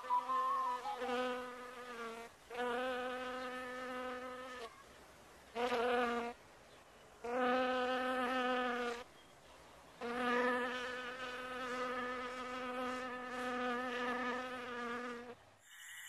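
A buzzing, insect-like held tone at one steady pitch, with a slight waver, coming in stretches of one to five seconds with short breaks between them.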